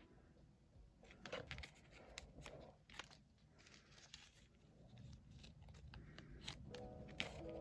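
Faint crinkling and light clicks of photocards and plastic binder sleeves being handled, as cards are slid into pocket pages.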